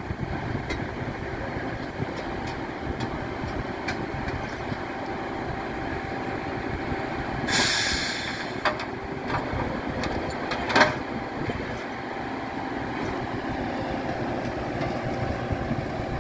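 Nordco TRIPP tie machine's engine running steadily. About halfway through there is a short hiss of released air, followed by a few sharp metal clanks.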